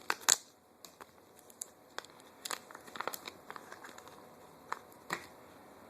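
Crinkling and rustling with scattered sharp clicks as the new Ratech hop-up bucking is picked up and handled.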